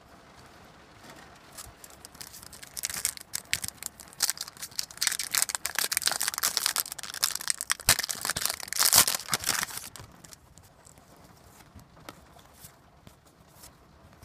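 A trading-card pack wrapper being torn open and crinkled: a dense run of crackling and tearing that starts about three seconds in and stops about ten seconds in, loudest near the end.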